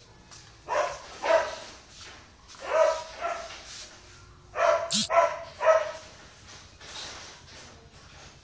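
A dog barking in three short groups of two or three barks, with a sharp click about five seconds in.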